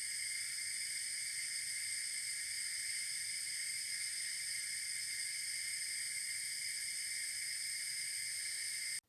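A steady high hiss with no low end, at an unchanging level; it cuts off abruptly near the end.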